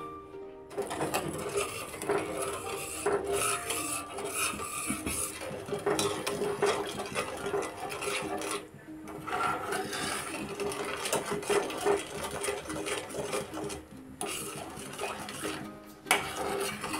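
A steel spoon stirring milk in a stainless steel saucepan, scraping and rubbing against the pan's bottom and sides in a steady rasping stir. It pauses briefly twice. The milk is being stirred as it cooks so that the sugar dissolves.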